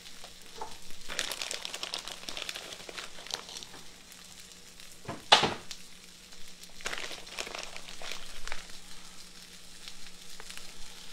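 Plastic bag crinkling in bursts while shredded cheese is taken out and sprinkled by hand over fried tomatoes in a skillet, over a faint sizzle from the pan. One sharp knock about five seconds in is the loudest sound.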